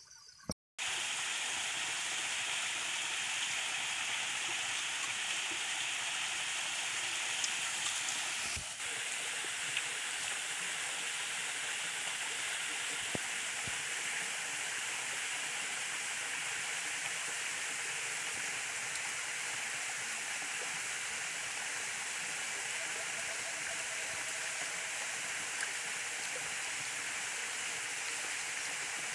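Steady rushing water of a small waterfall and rocky stream. It starts abruptly about a second in and shifts slightly about a third of the way through.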